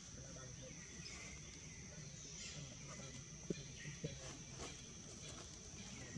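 Faint outdoor forest ambience: a steady high-pitched insect drone, with a few faint bird chirps and a couple of soft clicks.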